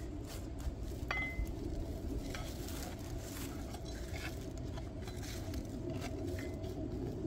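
A ceramic urn-shaped garden pot knocked down onto the ground with a sharp clink that rings briefly about a second in, followed by a few lighter knocks as pots and a plant are handled. A steady low rumble runs underneath.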